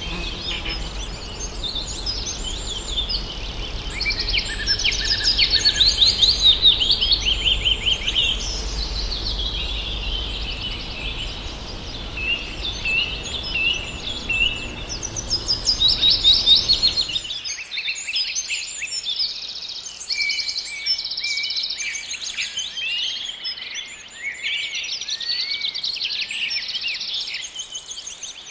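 Forest dawn-chorus-style birdsong: several songbirds singing and chirping over one another, with a low background rumble that drops out suddenly about two-thirds of the way through.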